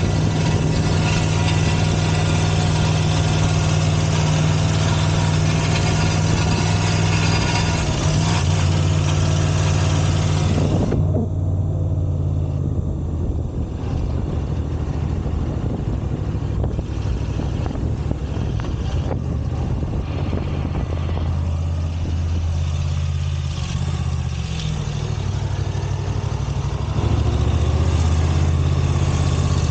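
Moto Guzzi V85 TT's V-twin engine running steadily, with a harsh bright rattle over the engine note that cuts off suddenly about eleven seconds in. The bike has a half-loose exhaust manifold cover, one of its screws loose, that vibrates and makes a dreadful noise.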